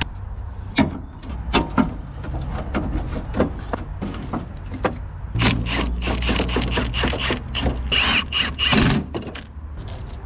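Metal clicks, knocks and scraping as a stuck key switch is worked and pried out of the loader's dash panel, the handling getting busier in the second half with a thin squeak of metal on metal.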